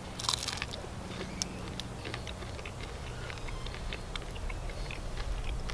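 Chewing a crunchy popielak, a flour-and-water flatbread mixed with white wood ash and baked on campfire embers: irregular small crisp crunches. The ash grit and the slightly burnt crust make it crunch in the teeth.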